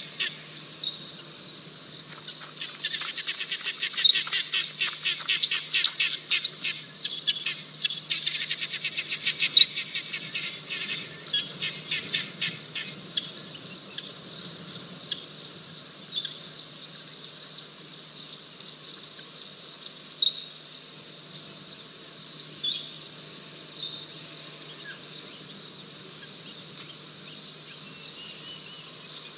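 Rapid, high-pitched chirping calls in two long runs of about four to five seconds each, then a few scattered single chirps over a faint outdoor background.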